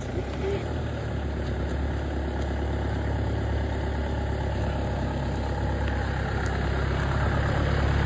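A motor vehicle's engine running with a steady low hum that grows a little louder.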